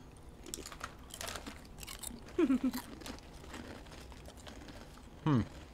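Thick, kettle-cooked waffle-cut potato chips crunching as they are bitten and chewed, a quick run of crisp crunches over the first few seconds that then thins out.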